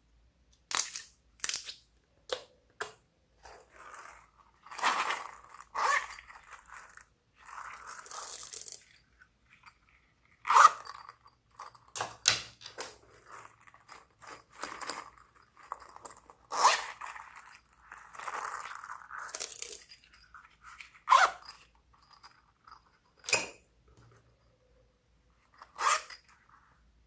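Hands squishing and kneading slime: irregular sticky clicks, pops and crackly squelches with short silent gaps between them.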